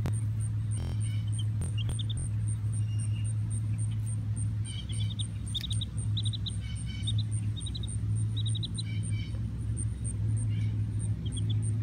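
A young chick peeping in quick runs of short, high cheeps, over a steady low mechanical hum. A faint, regular high ticking repeats about three times a second throughout.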